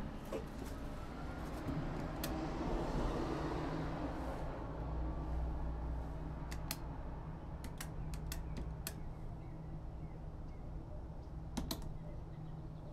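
Buttons on a gate entry keypad being pressed, sharp short clicks in small groups from about six seconds in and again near the end, over a steady low street rumble. The code entered on the keypad is not opening the gate.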